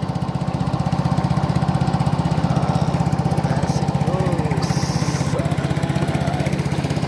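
Small boat engine running steadily at cruising speed, a fast, even putter.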